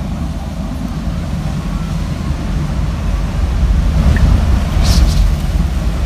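Strong typhoon wind gusting at an open window: a low whooshing that swells toward a peak about five seconds in, with a brief hiss at the height of the gust.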